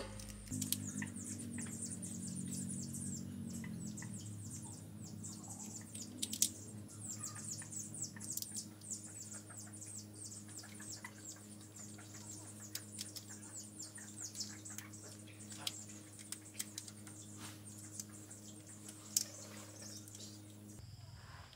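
Sharp small clicks and taps as a screwdriver works the screws of a plastic electrical plug, over rapid high-pitched chirping and a low steady hum.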